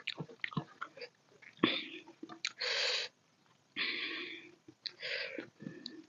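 Close-miked eating sounds of dal khichdi: wet chewing with small smacking clicks, and three breathy rushes of air about a second apart in the second half.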